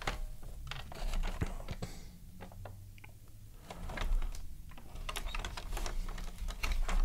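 Hard plastic clicks, taps and small knocks from a DX9 Capone (Masterpiece-scale Motormaster) toy figure being gripped and tugged by hand. The clicks are scattered and irregular, with a quieter stretch in the middle.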